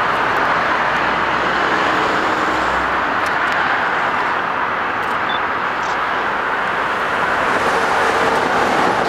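Steady road traffic noise from a multi-lane highway, an even rush of passing cars. A faint steady tone joins it about seven and a half seconds in, as an approaching train nears.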